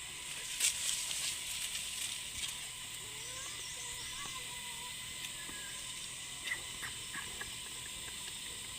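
Steady high-pitched insect buzzing in the open air, with a few faint clicks.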